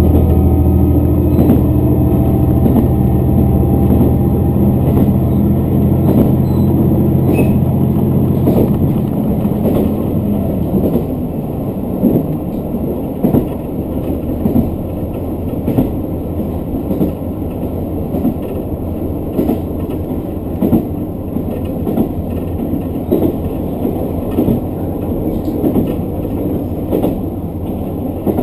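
Diesel railcar on the move: its engine runs under power for the first nine seconds or so, then drops away as the train coasts, leaving the running rumble and the wheels clicking over rail joints at a steady rhythm.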